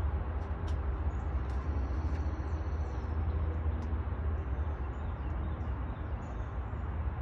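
Steady low background rumble, with a few light plastic clicks from a small plastic mouse trap being turned in the hands and faint high chirps.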